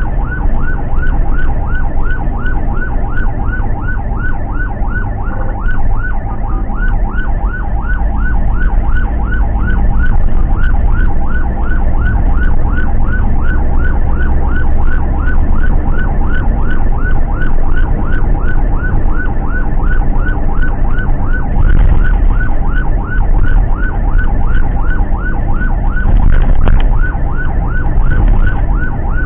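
Ambulance siren on a fast yelp, about three short rising whoops a second, heard from inside the Toyota ambulance van's cab over a steady low engine and road rumble.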